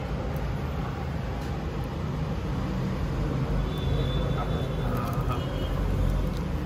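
Steady low rumble of background noise, with a few faint short high tones over it.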